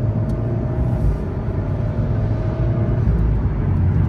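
Alpine A110 S's 1.8-litre turbo four-cylinder with the optional sport exhaust, heard from inside the cabin as the car accelerates hard and upshifts through the gears. Over a deep low rumble, the engine note rises for about three seconds and then drops at a gear change.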